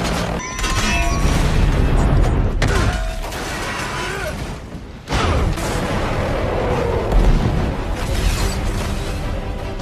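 Movie action sound effects: explosions and crashing, shattering wreckage over a music score. A lull just before five seconds in, then a sudden loud blast.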